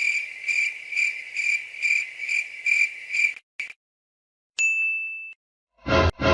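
Crickets-chirping sound effect: a high chirp repeating about three times a second for about three and a half seconds, then stopping. A single short high beep follows, and a brief loud burst of another effect comes near the end.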